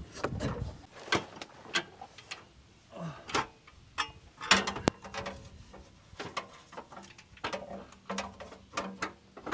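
Irregular clicks, knocks and scrapes of metal tools and parts being handled while working over a truck's engine and transmission, the loudest a sharp knock about four and a half seconds in.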